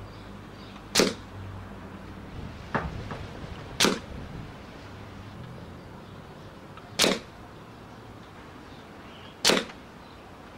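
Air Arms S400 pre-charged pneumatic air rifle fired four times, each shot a short sharp crack, about three seconds apart. A couple of lighter clicks come between the first and second shots.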